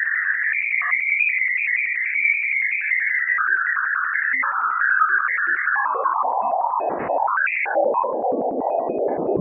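Sonified radio-wave recording from NASA's Juno spacecraft during its Ganymede flyby: an eerie, warbling, synthesizer-like electronic whine that wavers around a high pitch. About six seconds in it slides lower and grows rougher.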